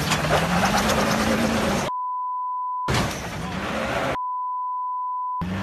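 Two censor bleeps, each a steady pure tone about a second long, which blank out all other sound about two seconds in and again about four seconds in. Around them a truck engine runs, with noisy street sound.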